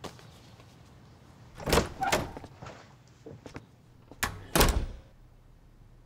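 A door being opened and shut: a series of clunks and knocks, the loudest pair about two seconds in and another pair about four and a half seconds in.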